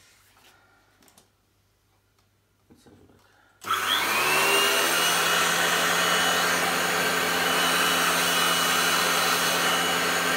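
Vacuum cleaner motor switched on about three and a half seconds in, whining up to speed within about a second and then running steadily, a high whine over a lower hum. It is being run to check its suction, which seems weak.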